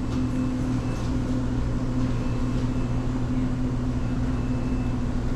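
Steady low hum of a shop's cooling equipment, refrigerated cases and air handling, holding one unchanging pitch.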